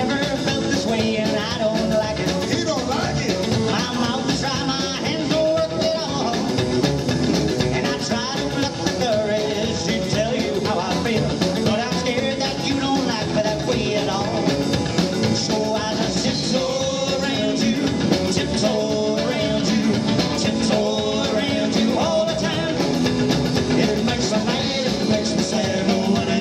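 A live rockabilly band playing rock 'n' roll: upright double bass, drum kit and electric guitar, with a male singer at the microphone.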